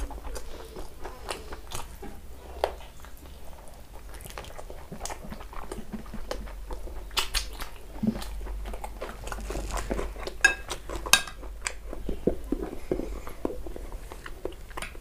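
Close-miked chewing and wet lip-smacking of chicken chaap and rice eaten by hand: many short mouth clicks and smacks, a few louder ones in the second half.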